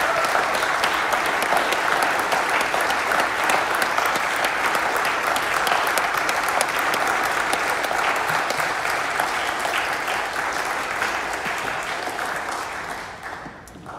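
Audience applauding a chamber ensemble's performance, a steady dense clapping that dies away near the end.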